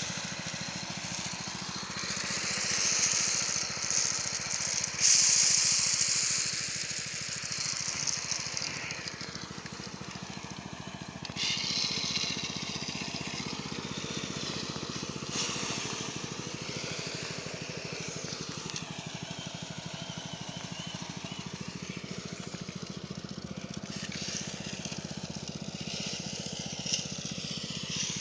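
Small engine-driven machine running steadily and smoothly, with a rushing hiss on top that swells a few seconds in and again near the middle.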